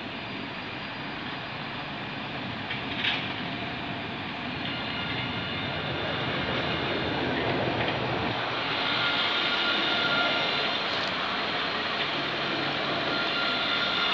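Alstom Citadis 403 tram passing close by on a curve: rolling noise and a steady high whine growing louder as it nears. A short, sharp sound about three seconds in.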